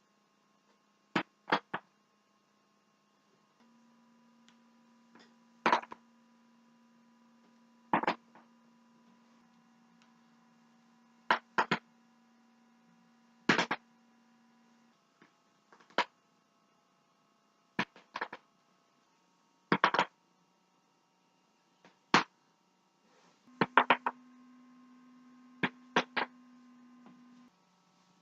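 A series of neck joints cracking: sharp, short pops every second or two, some single and some in quick doubles or triples. A faint steady hum lies underneath and changes pitch at the splices between clips.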